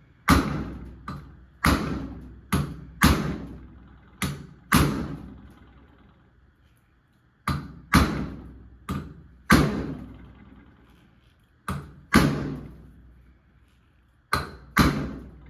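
Lyman inertia bullet puller struck repeatedly against the flat surface of a vise: about fourteen sharp knocks, many in quick pairs, each with a brief ring, with pauses between swings. The bullet in the .223 round is stuck fast and does not come free with these hits.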